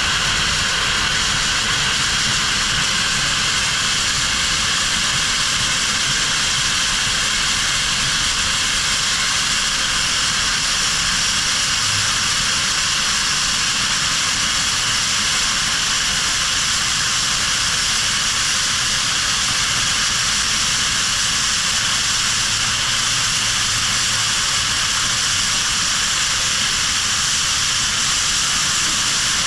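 Steam locomotive No. 148 venting steam at track level, a loud, steady hiss that neither rises nor falls. No exhaust beats are heard, so the engine is standing still.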